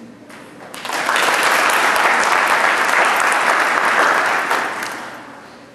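Audience applauding. It starts about a second in, holds, and dies away near the end.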